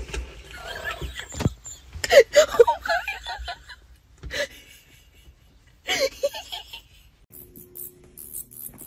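A person laughing in several bursts, with a single thump about a second and a half in.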